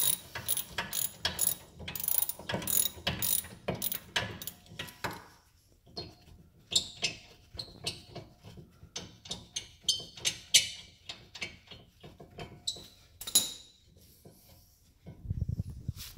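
Hand ratchet clicking as it backs out a 17 mm rear brake caliper bracket bolt. The clicks come in quick runs for the first five seconds or so, then slower and more scattered. A dull thump comes near the end.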